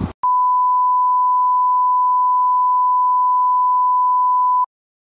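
Colour-bar test tone: one steady electronic beep held at a single pitch for about four and a half seconds, then cut off suddenly.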